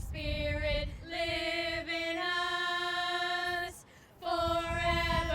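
A woman singing a few long, held notes without accompaniment, with a short break about four seconds in.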